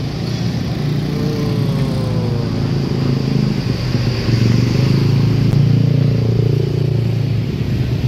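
Passing street traffic: motorcycle and car engines going by close, with one engine note falling in pitch about a second in as a vehicle passes, and the engine noise swelling louder through the middle.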